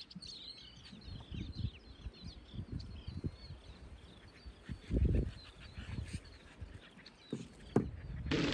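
A flock of small birds calling as it flies up over the water, a busy scatter of short high chirps that is densest in the first few seconds and thins out later. Dull low rumbles break in now and then, the loudest about five seconds in.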